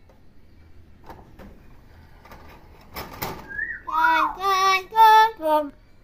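Hill myna mimicking human speech in a loud, clear voice: a short rasp, then a quick run of four or five syllables near the end, which the owner identifies as the phrase "rasa jagung" ("corn flavour") that the bird already knew when bought.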